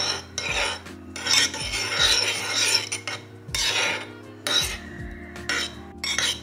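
Metal spoon stirring and scraping around a bowl of beans in milk, in repeated strokes, most continuous in the middle stretch.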